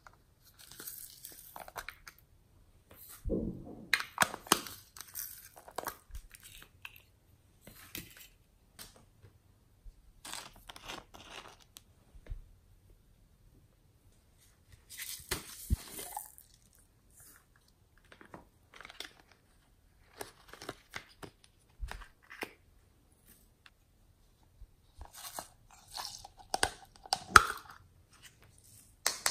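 Small plastic toy containers being handled, opened and tipped onto slime: irregular bursts of plastic clicks, rustling and crunching with short quiet gaps between them. The loudest clicks come near the end.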